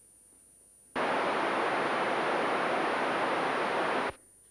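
Radio static hiss from a Kenwood TS-790E amateur transceiver switched to receive, switching on abruptly about a second in and cutting off sharply three seconds later. No voice from the ISS comes through it; the question goes unanswered and is repeated.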